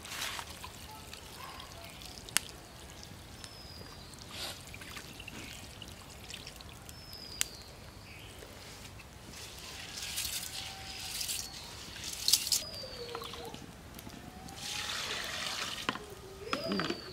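Water being poured while rice is rinsed in an aluminium bowl: the cloudy rinse water tipped off and trickling onto the ground, then fresh water poured in from a mug, with the loudest pouring near the end. A few sharp clicks of the bowl and faint short bird whistles are heard as well.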